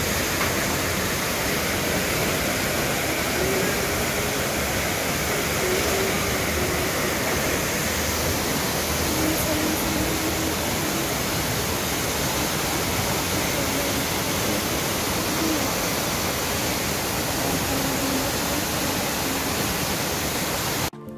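Steady rushing of torrential rain and floodwater pouring down, cutting off suddenly near the end.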